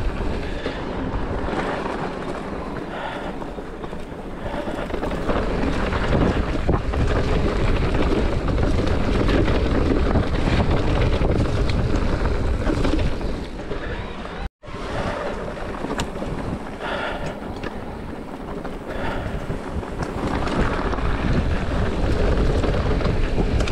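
Wind buffeting a GoPro action camera's microphone over the rolling and rattling of a mountain bike descending fast on a dry dirt trail. The sound drops out completely for a moment a little past halfway.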